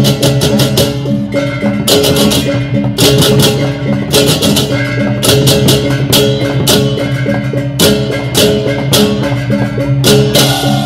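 Balinese gamelan beleganjur playing: kendang drums and fast clashing cymbals in repeated bursts of rapid strikes, over steady ringing gong tones.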